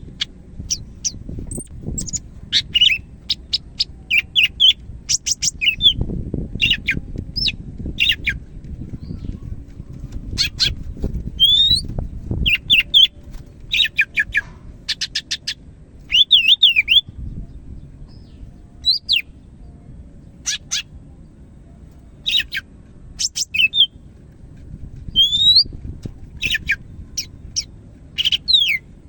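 Cucak hijau (green leafbird) of the Medan type singing in energetic phrases of quick chirps and sweeping whistled notes, with short pauses between phrases, over a low steady background rumble.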